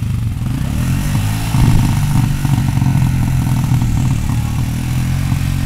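An ATV (quad) engine running steadily at idle, getting a little louder about a second and a half in.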